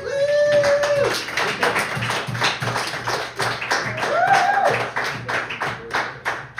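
Small audience clapping at the end of a song, with a long held whoop near the start and another rising-and-falling whoop about four seconds in.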